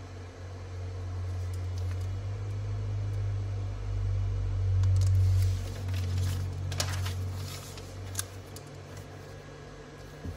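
A low hum swells to its loudest about halfway through and then fades. Sheets of paper crackle and rustle a few times near the end as handwritten notes are turned over.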